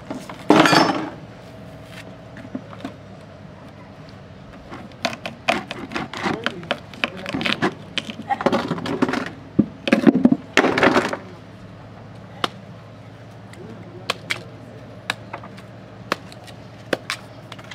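Kitchen knife peeling and cutting a raw cassava root by hand: irregular scraping strokes and sharp little clicks and taps of the blade, with busier bursts of scraping in the middle.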